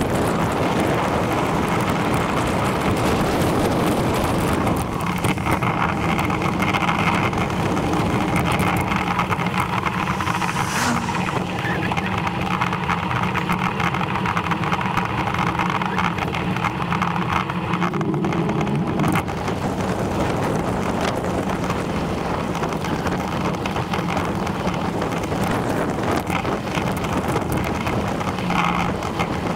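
Wind rushing over the microphone and tyre noise from a bicycle rolling along a tarmac lane. From about five seconds in, a steady hum with a few low tones rides under the noise and stops abruptly about nineteen seconds in.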